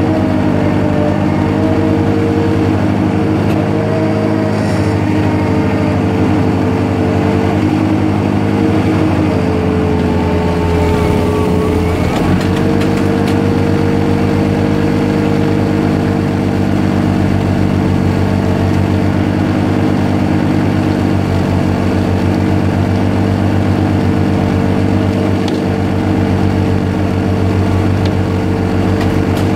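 Zamboni ice resurfacer's engine running steadily, dipping briefly in pitch about ten seconds in and then settling back.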